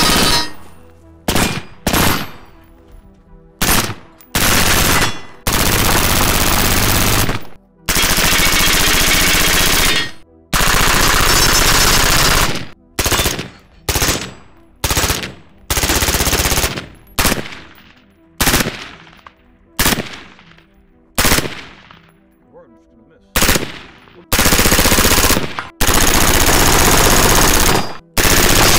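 PSA Freedom AR-15 rifle firing long strings of rapid shots, each string lasting one to two seconds, with single shots and echoing tails between them. This is the sustained fire of a burn-down test that is shooting the barrel out.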